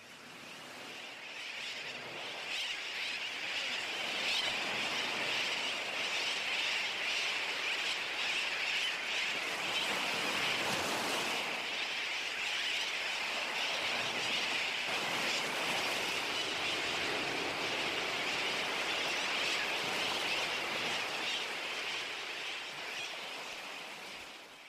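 Steady rushing noise of outdoor ambience, even and without tune or voices, fading in over the first few seconds and out near the end.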